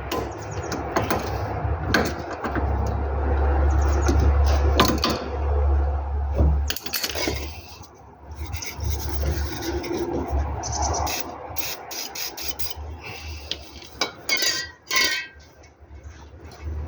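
Hand tools working metal car suspension parts while a sway bar link is being removed: repeated sharp clicks, scraping and squeaks of metal on metal, with a low rumble lasting about four seconds near the start.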